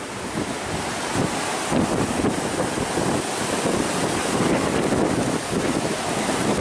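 Strong hurricane wind buffeting the microphone in gusts, over the steady noise of ocean surf breaking.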